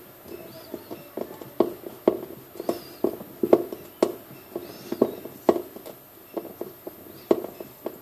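Hollow plastic knocks and clacks from a top-loading washing machine's pulsator being worked back and forth by hand, irregular, about two a second, some much louder than others.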